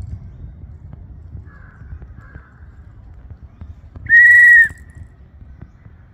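Crows cawing faintly twice, then about four seconds in a single loud, steady high whistle lasting about half a second.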